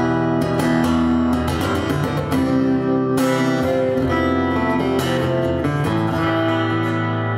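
Acoustic guitar played live, strummed chords ringing on, changing every second or so.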